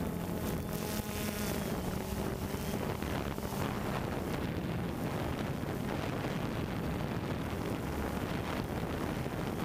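DJI Phantom 2 quadcopter's motors and propellers running in flight, heard from its onboard camera, mixed with wind noise on the microphone. A steady hum stands out for about the first four seconds, then sinks into the noise.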